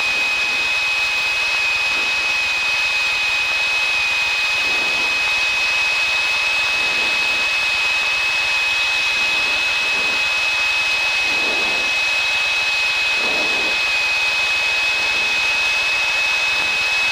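Piper PA28-161's four-cylinder Lycoming engine and propeller droning steadily in level flight, with a steady high-pitched whine over the drone.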